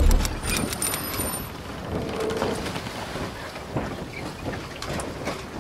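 Logo-animation sound effect: a deep boom right at the start, then a noisy rumble scattered with small crackles and a few brief high tones.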